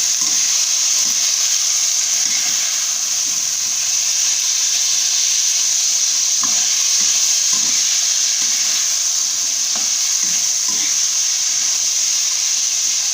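Long beans and garlic stir-frying in hot oil in a pan: a steady sizzle, with a spatula stirring and scraping against the pan now and then.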